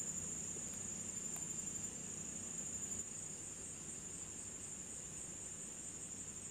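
A steady, high-pitched chorus of night insects such as crickets, with a couple of faint clicks in the first second and a half.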